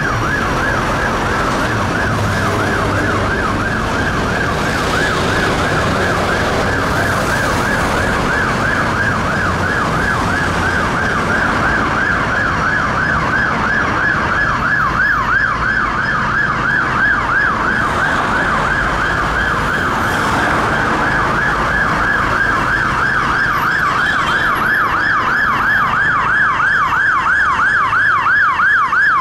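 Mercedes-Benz Atego fire engine's siren sounding a fast yelp, a quick rising-and-falling wail that comes closer and grows louder over the last several seconds, over the rumble of idling traffic.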